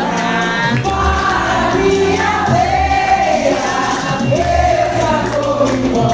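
Live music: a group of voices singing together in long held notes over a low instrumental accompaniment.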